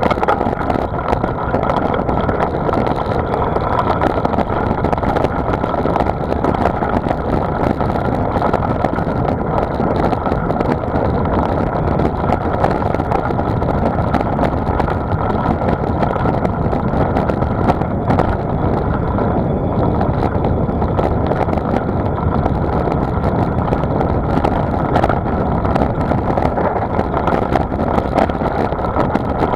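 Steady wind rush over a bicycle-carried camera's microphone while riding, with rolling road noise underneath.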